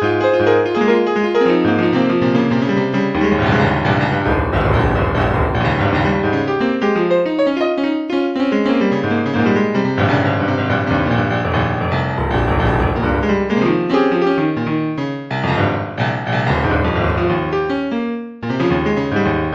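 Solo piano music with flowing runs of notes and full chords in the bass, briefly thinning out twice near the end.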